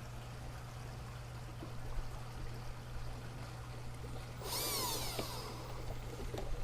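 Steady low hum with faint trickling water from the pond, then a brief whir from a cordless drill, its pitch rising and falling, about four and a half seconds in as it drives a screw to tack the waterfall in place.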